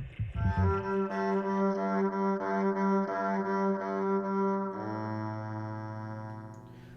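Background film-score music: long held low notes that shift to a lower, quieter chord about two-thirds of the way through and fade near the end.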